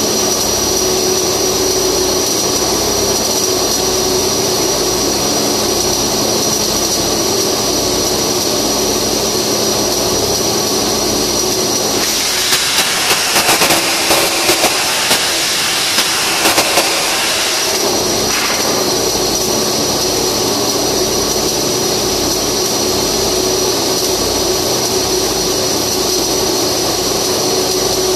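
Flux-cored arc welding against a loud, steady mechanical drone. About twelve seconds in, for some six seconds, the sound turns to a sharper, higher crackle with irregular loud pops.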